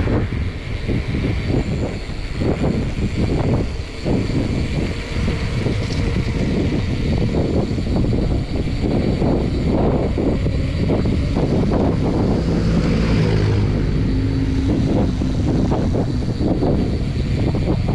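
Wind buffeting the microphone of a moving rider, a loud, rough rumble. A vehicle engine hum rises into it about twelve seconds in and fades a few seconds later.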